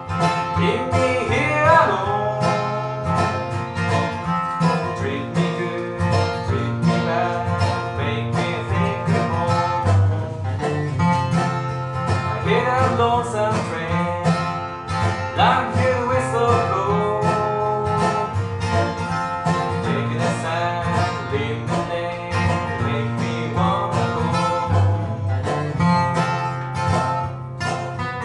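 Acoustic bluegrass duo playing: a steel-string acoustic guitar strumming the rhythm under a dobro (resonator slide guitar) lead, whose notes slide up into pitch several times.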